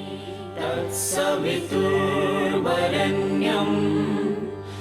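Background devotional music: voices singing long held notes together over a steady low drone.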